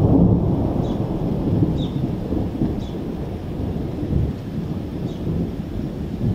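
Thunder rumbling in a long low roll, loudest at the very start and then rolling on unevenly.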